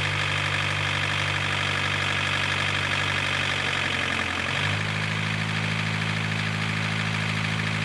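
Isuzu C223 four-cylinder diesel engine of an open-frame marine generator set running steadily with a diesel knock. About halfway through, its speed dips briefly, then settles a little higher.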